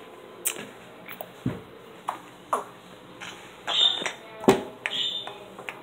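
A handheld phone being moved and gripped close to its microphone: a string of irregular short knocks, taps and rubs, the sharpest knock a little past the middle, with two brief high squeaky tones toward the end.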